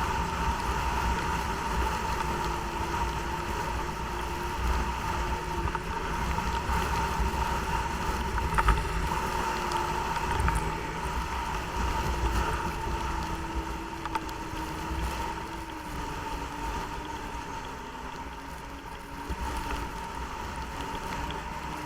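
Snowmobile engine running steadily under way, with a constant high whine over it; the engine note eases slightly lower and quieter in the second half.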